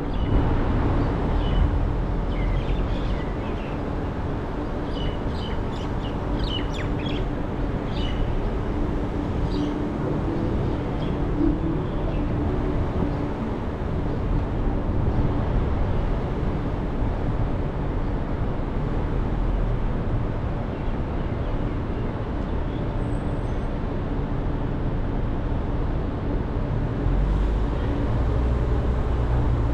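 Steady road noise from a car being driven. Birds chirp through the first ten seconds or so. The low rumble grows louder near the end.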